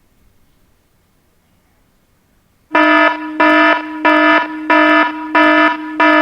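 Near silence, then about two and a half seconds in, a web-page alarm clock's alarm tone starts: the set alarm time has been reached. It is a loud electronic alarm sound pulsing about three times every two seconds.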